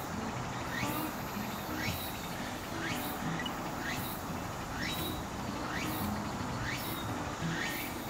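An insect calling at night in a steady rhythm: a thin, rising chirp about once a second, over a low steady hum.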